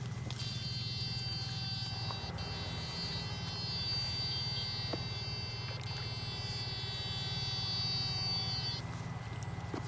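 Backpack electrofishing inverter buzzing steadily while current runs through the bamboo-pole electrodes in the water, with a high whine over it that switches on about half a second in and cuts off near the end.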